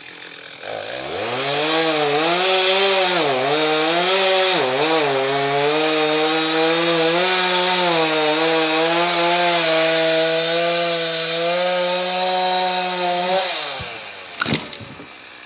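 Chainsaw revved up and cutting through a fallen tree trunk, its pitch dipping several times as the chain loads in the wood, then let off about 14 seconds in. A brief, loud cracking sound follows right after.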